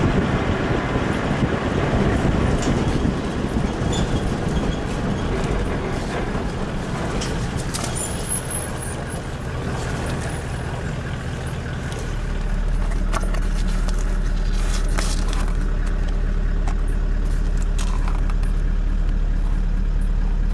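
4x4 vehicle's engine running. About twelve seconds in the sound settles into a steady low hum as heard from inside the cab, with a few light clicks and knocks.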